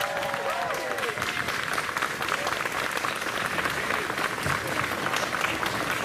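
A crowd of guests applauding steadily, with a few cheers and whoops in the first second.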